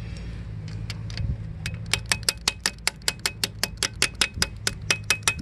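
Hand socket ratchet clicking in a quick, even run, about five or six clicks a second, as it loosens a bolt on the hydraulic clutch oil-filter housing of a Yamaha SX420 stern drive; the clicking starts a little over a second in, over a steady low hum.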